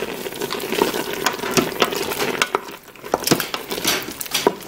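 Wooden spoon stirring chunks of beef, mushrooms and vegetables in wine and tomato paste in a stainless steel Instant Pot inner pot, with wet stirring noise and irregular clicks and scrapes of the spoon against the pot.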